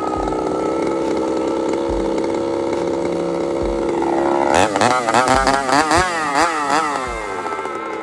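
Chainsaw engine running at a steady high speed, then, about halfway through, surging rapidly up and down in pitch for a few seconds as it runs out of fuel, and settling lower near the end.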